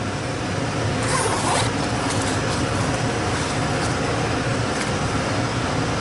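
Zipper of a padded soft meter case being pulled open in short rasps, the longest about a second in, over a steady mechanical drone from running machinery.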